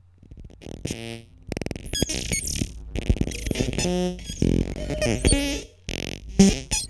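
Electronic music from an analog modular synthesizer, its sounds captured and played back by a Max/MSP patch: plinky-plonky short pitched blips, chirps and clicks mixed with bursts of noise, in irregular fits and starts.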